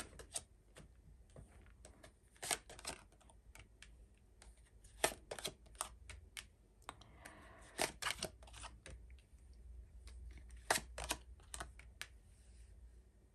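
Tarot cards being handled: the deck is shuffled and cards are drawn and laid down one after another on a cloth-covered table, giving faint, sharp card clicks and snaps at irregular intervals, in small clusters.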